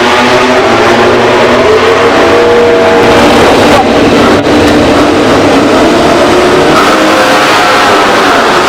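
MotoGP racing motorcycles' engines revving hard, several at once, their pitches rising and falling over each other.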